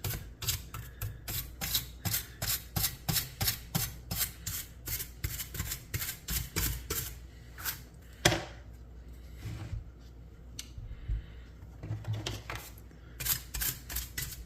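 Soft-bristled AC coil brush scrubbing dust off a dirty transformer inside an old oscilloscope, in quick strokes about three a second. The brushing pauses a little past halfway with a single sharp knock, then the strokes start again near the end.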